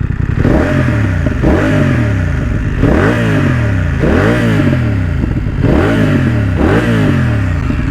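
BMW F 900 R parallel-twin engine through an SC Project SC1-R carbon exhaust with dB eater, revved in a series of throttle blips roughly once a second, each rising and falling in pitch.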